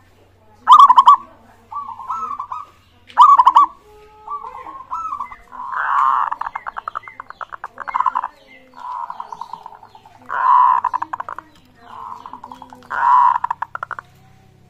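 Zebra doves (perkutut) singing: a string of cooing phrases, many broken into rapid pulses, one after another with short gaps, the longest running nearly three seconds.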